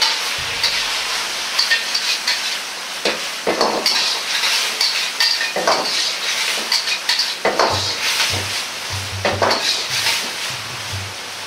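Metal spatula scraping and clinking against a Chinese wok as strips of burdock root are stirred, over a steady sizzle of sweet-vinegar sauce reducing to a glaze on high heat. A few low knocks come near the end.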